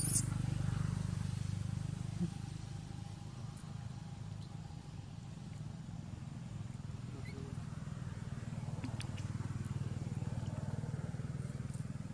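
A small motor running steadily in the background, a low even drone. A brief high squeak comes right at the start.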